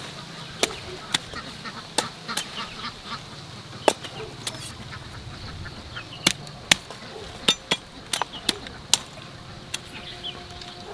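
A dozen or so irregular sharp clicks and snaps over a faint steady background.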